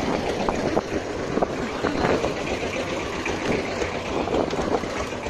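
Steady noise of a small wooden motorboat under way, its engine running with wind and water noise over it.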